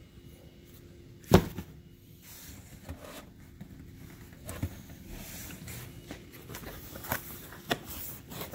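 Cardboard boxes being handled: one sharp knock about a second in, then several lighter knocks and the rustle and scrape of cardboard.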